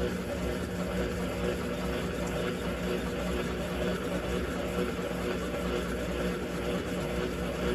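Electrolux LTC15 top-loading washing machine running, with a steady motor hum.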